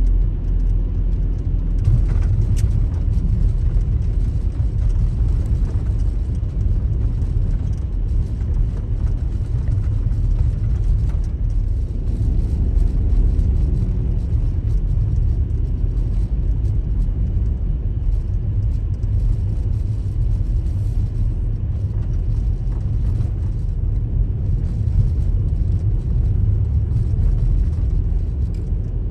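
Daihatsu Taft kei car driving on a snowy road: a steady low rumble of engine and tyres, with a few faint ticks.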